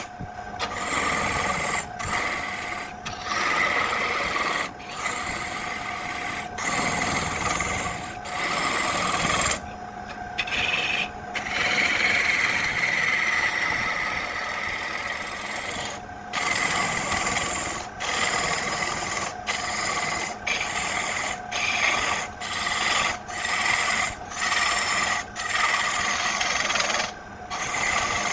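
Wood being shaped with a tool on a running machine: a steady rasping scrape over a machine hum, stopping and starting abruptly many times.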